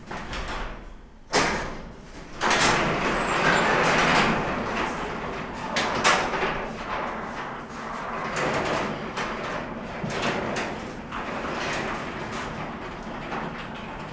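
Sectional garage door moving on its tracks with a steady rattle and rumble, a sharp knock about a second in and a clank about six seconds in. The banging comes from the door having shifted to one side after losing a bolt, so its lift cable strikes the hardware as it moves.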